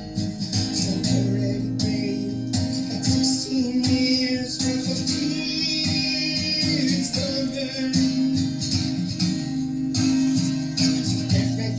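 A young man singing a song live, with instrumental accompaniment.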